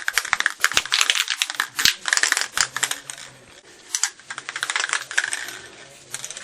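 Rust being scraped off the washing machine's sheet-metal top by hand: quick, uneven runs of scratching and clicking strokes on metal, with brief pauses between runs.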